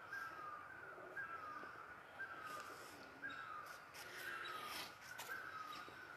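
A bird calling over and over, a short falling note repeated about once a second, with a few sharp clicks in the middle.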